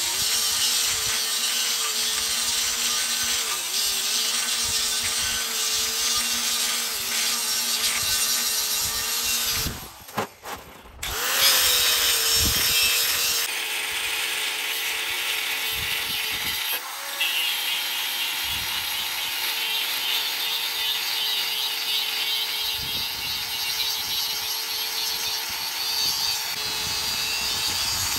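Electric angle grinder with a thin abrasive cut-off disc cutting into a rusty steel beam: a steady motor whine over a loud grinding hiss. It stops briefly about ten seconds in, then spins back up and keeps cutting.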